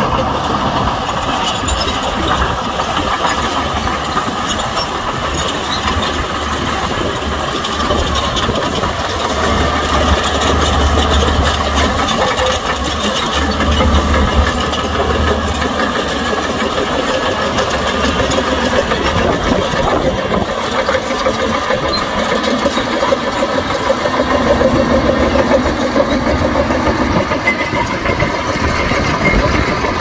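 Diesel engines of heavy earthmoving machinery running continuously, with a low rumble that swells and eases as the machines work.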